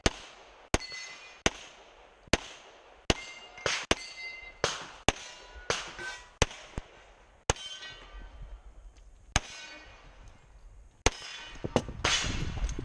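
About fifteen pistol shots from a CZ pistol in .40, fired at a pace of roughly one every half to three-quarters of a second, many followed by the ring of hit steel targets. There is a pause of about two seconds past the middle, and a stretch of rustling near the end.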